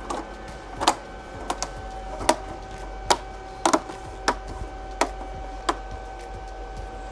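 Irregular sharp clicks and taps of plastic diffuser sheets being laid and pressed into an LED TV's backlight frame, about ten in seven seconds, over a faint steady tone.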